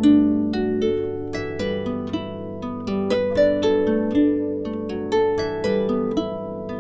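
Background music: a plucked-string melody, several notes a second, each struck sharply and fading, over lower chords.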